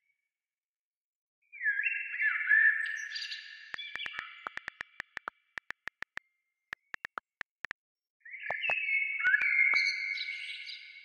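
High chirping tones that slide in pitch, several at once, in two bursts. Between them comes a quick run of sharp clicks, about four or five a second.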